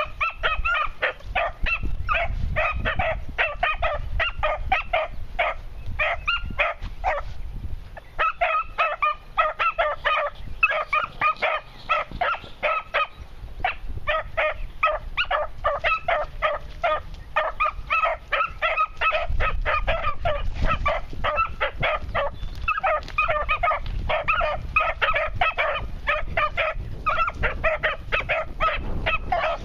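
Beagle pups barking in a fast run of high, repeated yelps, several a second, with short breaks about eight and thirteen seconds in: the pups giving tongue as they work a scent trail.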